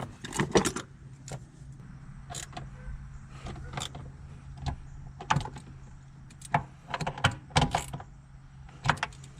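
Irregular metallic clicks and clinks of a socket wrench and bolts as the bolts are put in and tightened down over new shifter bushings, with a steady low hum underneath.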